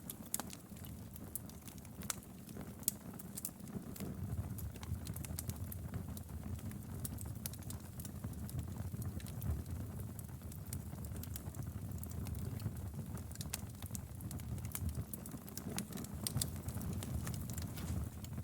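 Fireplace fire crackling: frequent small irregular snaps and pops over a low steady rumble of the flames.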